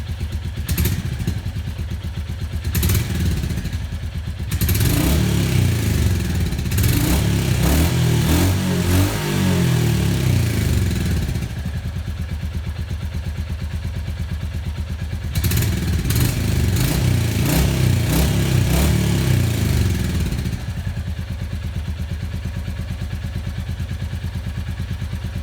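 Royal Enfield Hunter 350's 349 cc single-cylinder engine idling through its exhaust, with short throttle blips about one and three seconds in. It is then revved repeatedly for about seven seconds, drops back to idle, is revved again for about five seconds, and settles to a steady idle.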